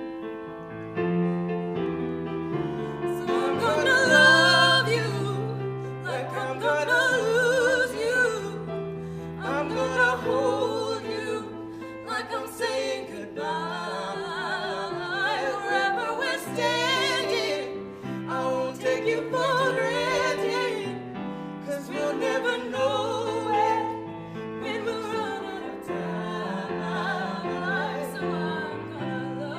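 A man and a woman singing a slow pop ballad as a duet, with wavering held notes, over keyboard accompaniment.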